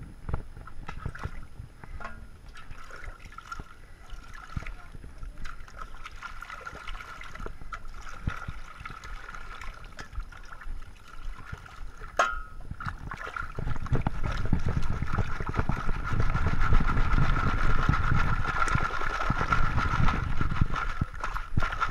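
Muddy water sloshing and splashing as a round screen of dirt and gravel is dipped and shaken in a washing trough, with one sharp knock about halfway through. The splashing grows louder and more vigorous about two-thirds of the way in.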